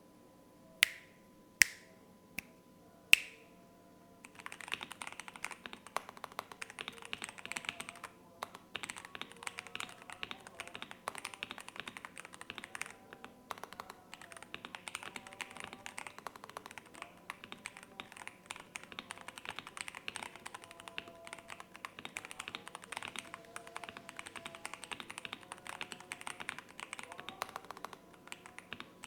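Computer keyboard: four separate loud keystrokes, each with a short ring, then from about four seconds in, steady fast typing, many keystrokes a second.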